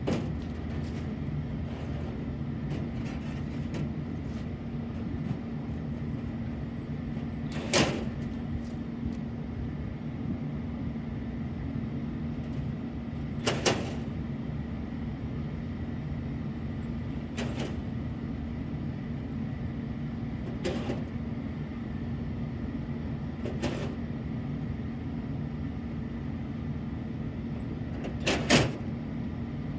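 Steady low machinery hum, with about six sharp metal knocks and clanks spaced several seconds apart as a sheet-metal access panel is fitted back onto a rooftop HVAC unit; the loudest is a double clank near the end.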